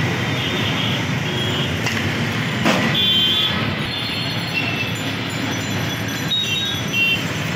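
Steady street traffic noise with several short, high horn toots, and one sharp knock a little before halfway.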